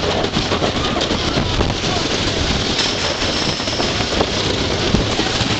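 Wooden roller coaster train running at speed, heard from a rider's seat: steady wind rush over the microphone mixed with the rattle of the train on the wooden track. A brief high squeal sounds for about a second near the middle.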